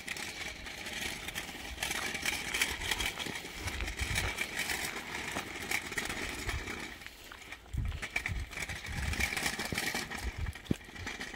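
The small wheels of a child's kick scooter and a pram rolling over asphalt, a steady rolling noise with scattered clicks and footsteps, dipping briefly about seven seconds in. Gusts of wind buffet the microphone now and then.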